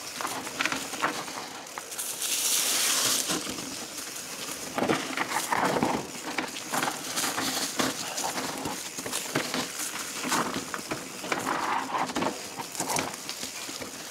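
Mountain bike rolling over a rough dirt trail: irregular crunching and clicking of tyres on gravel and rattling of the bike, with a brief hiss about two seconds in.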